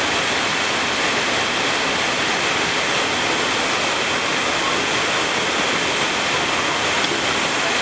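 Waterfall pouring down the rock into a pool, a steady, even rush of falling water.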